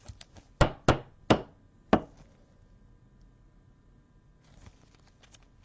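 Four sharp knocks about 0.6, 0.9, 1.3 and 1.9 seconds in, with a few lighter taps among them, then quiet.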